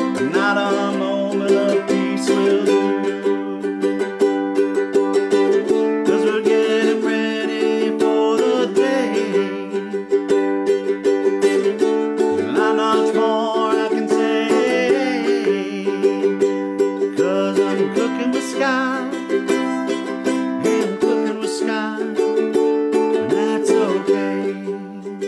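Ukulele music: an improvised theme song strummed steadily on ukulele.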